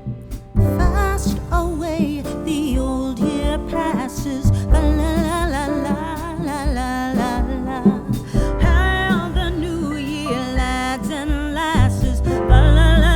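Background music: a song with a sung vocal over a steady beat with strong bass.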